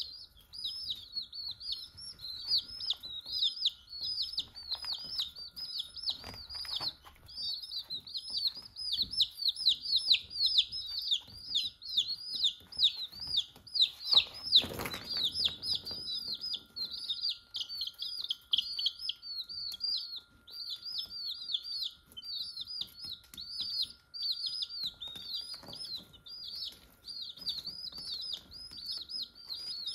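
A group of young chicks peeping without pause: rapid, high-pitched falling peeps overlapping one another. A short burst of noise about halfway through.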